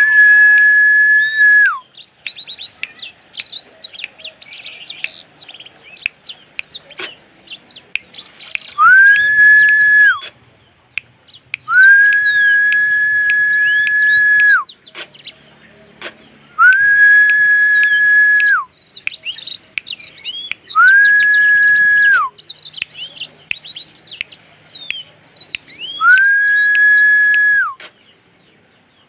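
A small caged songbird, the kind sold as a 'blackmoz', singing actively in rapid high chirps and trills. The song alternates with a much louder, long, steady whistled note, about seven of them, each gliding up at the start and dropping off at the end.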